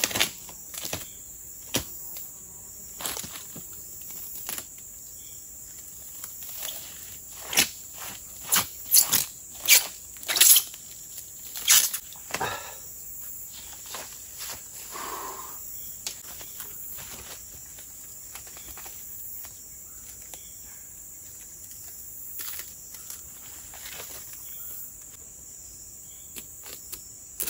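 Steady high-pitched chirring of insects, with scattered sharp knocks and rustles over it and a quick run of louder knocks about eight to twelve seconds in.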